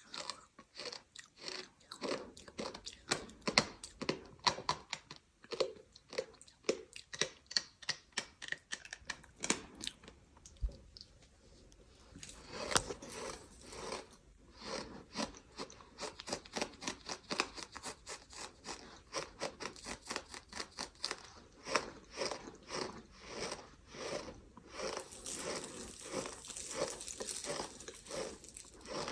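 A person chewing something gritty and sandy close to the microphone: a steady run of short crunching, squeaky bites, several a second, with a brief lull about a third of the way in.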